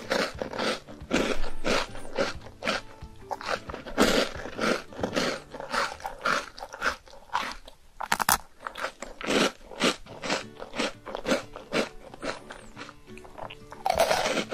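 Crisp snack being bitten and chewed close to the microphone, with regular crunches about three a second, a short pause about eight seconds in, then a sharp bite and more crunching. Background music plays underneath.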